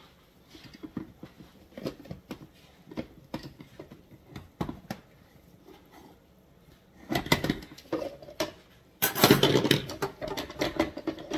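Utensil knocking and scraping against a skillet as browned ground turkey sausage is scooped out. Scattered light clicks and taps, then two louder scrapes about seven and nine seconds in.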